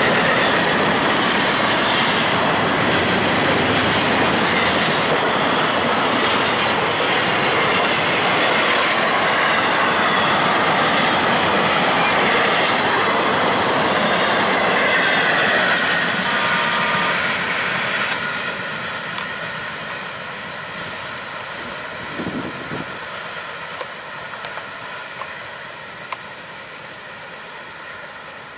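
Freight cars of a long train rolling past on the rails, a loud, even clatter of steel wheels. About 17 seconds in, the last cars go by and the noise drops away, leaving a steady high-pitched hiss.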